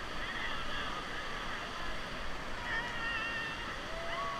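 Whitewater river rushing past a raft as a steady hiss, with faint wavering calls in the distance, mostly in the second half.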